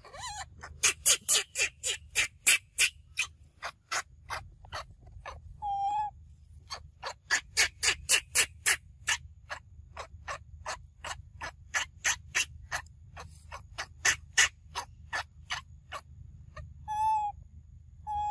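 Wild animal calls from the surrounding forest: long runs of sharp, rapid clicking notes, about four or five a second. A short hooting call sounds once about six seconds in and again near the end.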